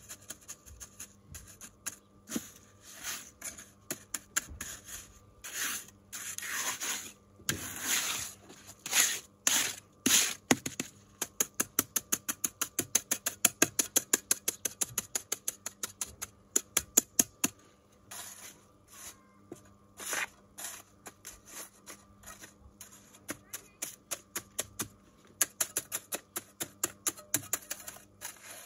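Small steel trowel scraping and slapping wet concrete as it is spread, with a fast run of light, evenly spaced taps midway through as the surface is patted down.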